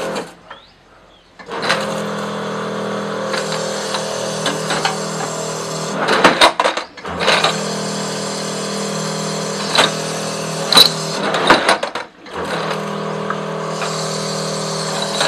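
Tea-cup washing machine running: a steady motor hum under the hiss of water spraying the upturned glasses inside and out. It starts about a second and a half in and stops twice briefly, with clinks and knocks in each pause.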